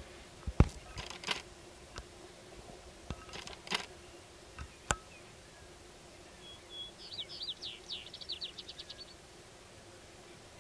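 Scattered sharp clicks over the first five seconds, the loudest about half a second in. Then a small songbird sings a run of high, down-slurred notes that speed up into a trill.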